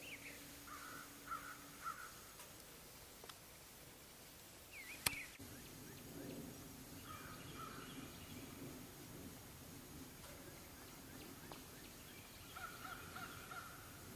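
Faint, distant bird calls, short repeated notes in three brief runs, of the cawing kind typical of crows, with a single sharp click about five seconds in.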